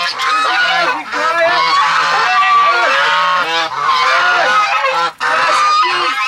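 Domestic geese honking loudly and without pause, many calls overlapping, mixed with the calls of other poultry crowding round to be fed.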